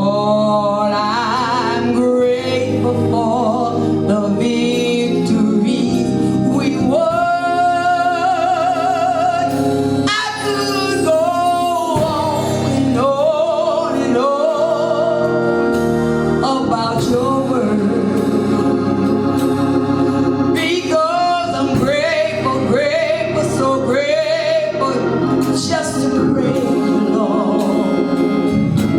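A gospel song: a singing voice with wavering held notes over a steady instrumental accompaniment.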